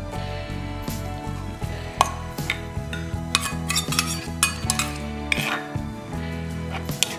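Metal spoon scraping and clinking against a small stainless steel bowl, several sharp clicks in a row starting about two seconds in, over background music.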